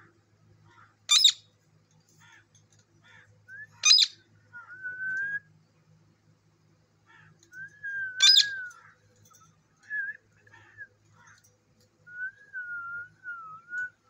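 Caged green parakeet calling: three short, shrill screeches, with softer chirps and several whistled notes in between. The last whistle wavers up and down near the end.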